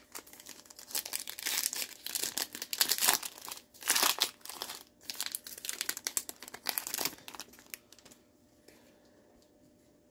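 Foil trading-card pack wrapper crinkling and tearing as it is ripped open and handled, a dense run of crackles that is loudest midway and dies away after about seven seconds.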